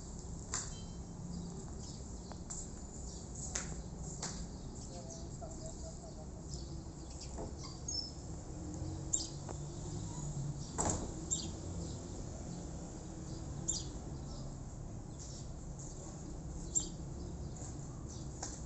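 Outdoor garden ambience: a steady low rumble with scattered faint high chirps and ticks, and a couple of sharper clicks about eleven seconds in.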